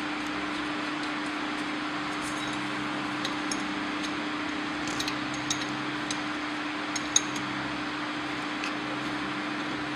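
Light metal clinks and taps as hooks and eye bolts are handled and fitted on a wire mesh weaving machine's frame. They come a few at a time, with one sharper click about two-thirds of the way through, over a steady background hum and hiss.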